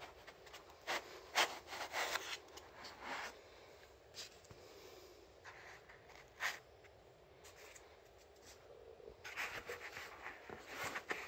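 Hands working a tonearm part free of a cut-foam packing insert in a cardboard box: foam and cardboard rubbing and scraping in scattered short bursts, busiest in the first few seconds and again near the end.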